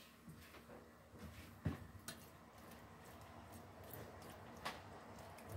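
A metal spoon stirring pork and vegetables in a stainless steel pot: faint scraping with a few light clicks and knocks.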